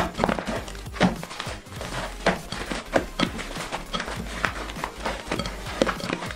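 Crunchy slime being squeezed and kneaded by hand in a glass bowl: irregular squishing and crackling, with louder squishes every second or so.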